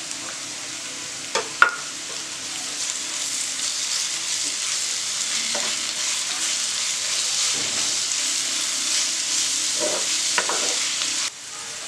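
Sliced onions sizzling in hot oil in a nonstick frying pan while a wooden spatula stirs them: a steady frying hiss, with two sharp knocks of the spatula against the pan a little over a second in and softer scraping strokes as it stirs. The hiss drops off suddenly near the end.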